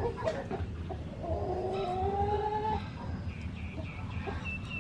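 An animal's drawn-out call, rising slightly in pitch over about a second and a half, followed near the end by a run of short high chirps.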